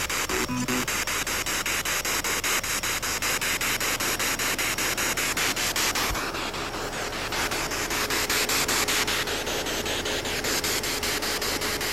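SB7 spirit box sweeping through radio stations: a steady hiss of static chopped evenly several times a second by the sweep. About halfway through, a faint held tone comes through the static.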